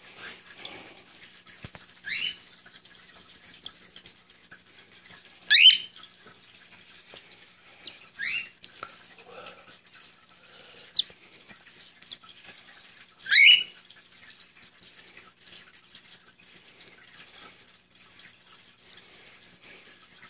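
Downy cockatiel chick giving short, sharp calls that rise steeply in pitch, about five of them several seconds apart, over a faint hiss.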